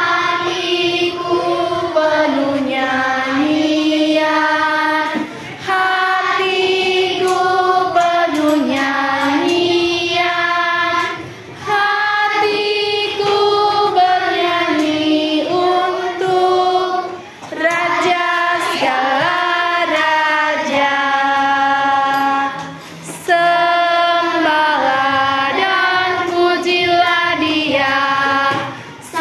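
A classroom of children singing together in unison, in phrases broken by short pauses for breath about every six seconds.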